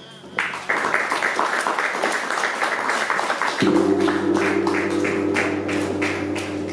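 Audience applause. About three and a half seconds in, a large hanging gong is struck once with a mallet, and its deep, steady hum rings on under the clapping.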